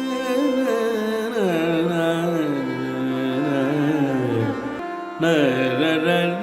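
Background music in an Indian classical style: a melody of sliding, wavering notes over a steady drone, breaking off briefly about five seconds in before starting again.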